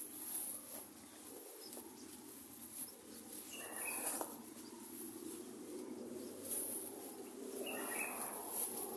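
Birds calling amid natural outdoor ambience, with two louder calls about four and eight seconds in and repeated faint high-pitched chirping or buzzing.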